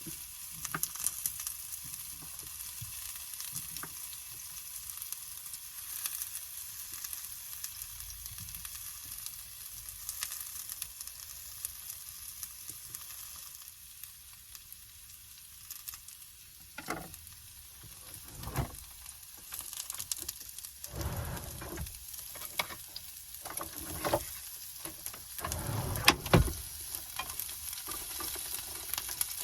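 Onions and carrots sautéing in a pan: a steady high sizzle, with the knocks and scrapes of a utensil stirring them several times, more often in the second half.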